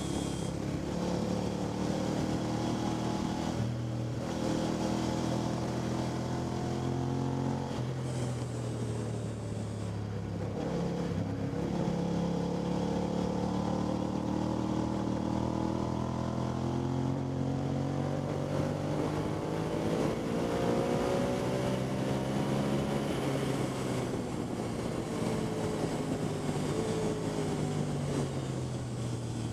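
Motorcycle engine at track pace, revving up through the gears with sudden drops in pitch at the shifts, then falling away on the brakes before climbing again near the end.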